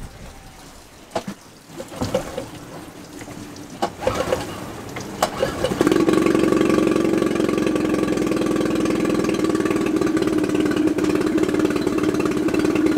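Small four-stroke dinghy outboard motor catching about six seconds in, then running at a steady idle. It has just been dried out after being submerged upside down in salt water. Before it starts there are a few separate knocks and clicks.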